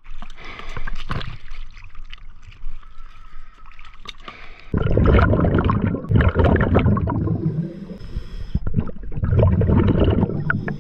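Water splashing and lapping at the surface, then, from about five seconds in, underwater: loud rushes of bubbles from a scuba diver's exhalations, coming in long bursts with short pauses between them.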